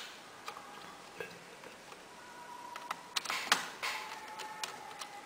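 Small clicks and ticks of a laptop heatsink being pressed back into place over the processor and its screws turned with a small screwdriver, with a couple of brief scuffs about three and a half seconds in.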